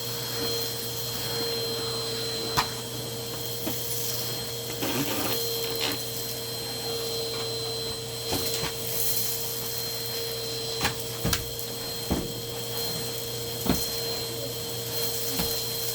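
Numatic Hetty canister vacuum cleaner running steadily with a constant whine, with scattered knocks and clicks as the nozzle and hose bump along.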